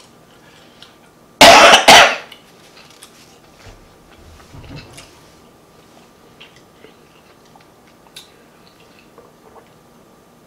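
A woman coughs twice in quick succession, loud and close to the microphone, about a second and a half in; faint small clicks follow.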